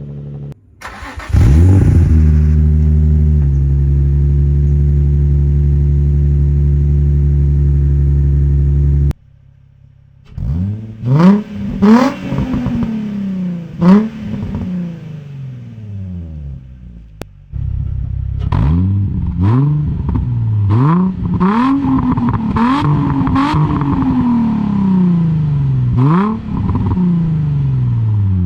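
2003 Nissan 350Z's VQ35DE V6 running through a new Z1 Motorsport single-exit straight-cut race exhaust with the back silencer fitted: it starts about a second in and settles to a steady idle. Later it is blipped again and again, each rev rising and falling quickly back to idle.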